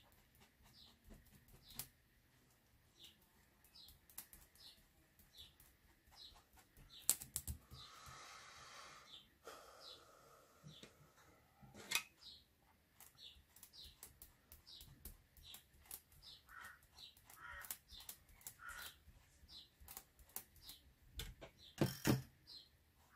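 Faint, scattered soft taps and clicks of a foam blending sponge dabbing chalk blending ink through a plastic stencil onto card.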